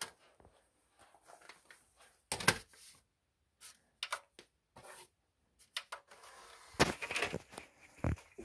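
Short clicks and knocks from handling a disc and a disc player's tray as the disc is set in and the player is closed, with a sharp knock about two and a half seconds in and a cluster of knocks near the end.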